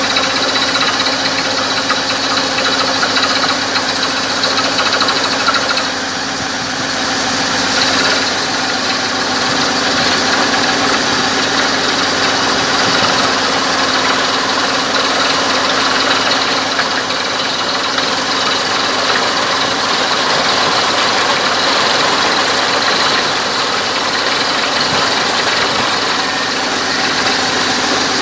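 Water-well drilling rig running steadily under load, its engine driving the rotating drill string into the borehole.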